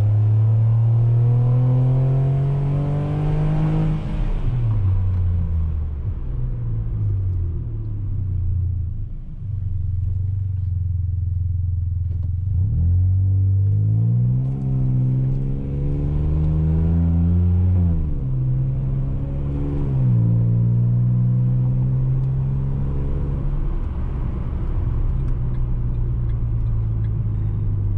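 Ford Ka 1.5 three-cylinder engine's exhaust, fitted with a universal JK sport muffler in place of the stock rear box, under gentle driving. The note climbs with the revs and drops back several times as the automatic gearbox goes through the gears, with one long climb about halfway through. It is a mild three-cylinder drone that doesn't intrude.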